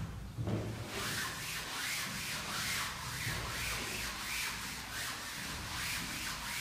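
Blackboard eraser wiped over a chalkboard, rubbing off chalk writing in repeated back-and-forth strokes, starting about a second in.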